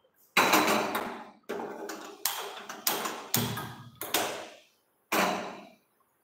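About eight sharp clanks of kitchenware being handled, each ringing briefly and dying away, coming in an uneven run over about five seconds.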